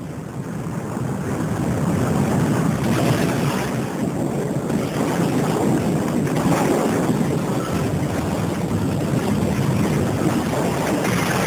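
Film sound effect of a giant tsunami wave: rushing water and wind that builds over the first two seconds and then holds loud and steady.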